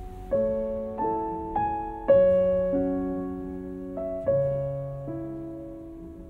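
Slow, gentle piano music: single notes and chords struck about once a second, each ringing out and fading before the next.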